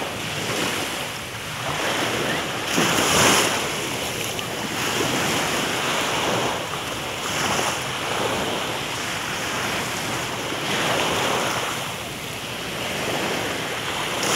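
Surf washing on a sandy beach, swelling and easing every few seconds, with wind rushing over the microphone.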